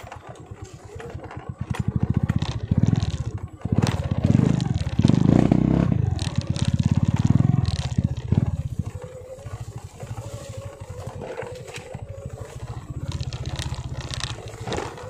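Small motorcycle engine running at low speed with a steady pulsing beat, louder for several seconds in the middle, over the clatter and scrape of the tyres on a rocky dirt trail.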